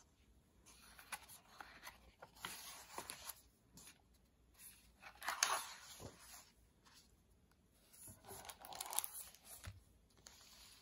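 Hardcover picture book being handled: pages turned and the plastic-covered jacket rustling and crinkling as the book is closed and flipped over, in three bouts of crackly rustling.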